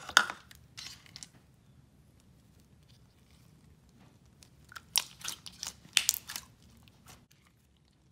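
Clear gold shimmer slime being stretched and squished by hand, giving sticky clicks and crackling pops. They come in two clusters, right at the start and again from about five to six and a half seconds in, with a quiet stretch between.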